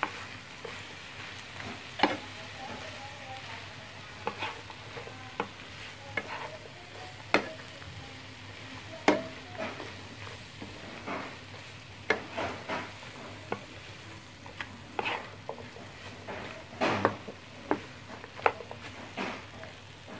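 Wooden spatula stirring and turning sliced bitter gourd in a frying pan, with frequent irregular knocks and scrapes against the pan over a steady low sizzle of the vegetables sautéing.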